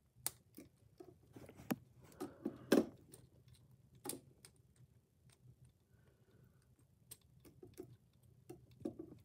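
Irregular light clicks and taps of plastic Lego pieces being handled, the sharpest a little under three seconds in and again about four seconds in.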